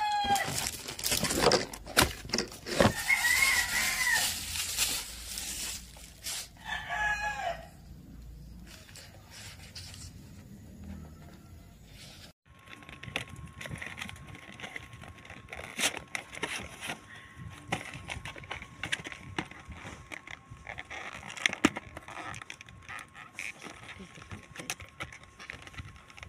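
A rooster crowing about three times in the first eight seconds, over the dense crackle of plastic wrap being peeled off a headphone box. After a break about twelve seconds in, soft clicking and rustling of a cardboard box being handled and opened.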